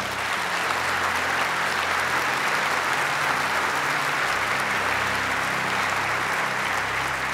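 A large church congregation applauding, steady continuous clapping.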